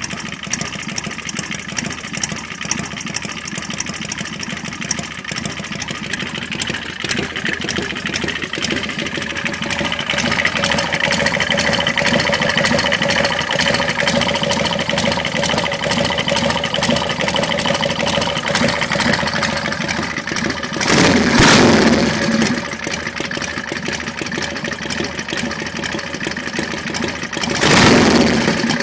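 Harley-Davidson Panhead V-twin engine idling, revved briefly twice: once about two-thirds of the way through and again near the end.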